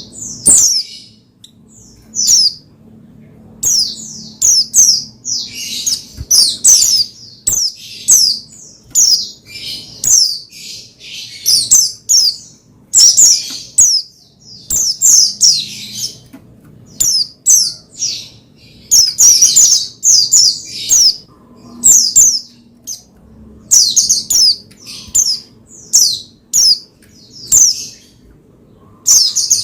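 White-eye (pleci) singing energetically: rapid bursts of high chirps and short downward-sweeping notes, phrase after phrase with brief pauses between.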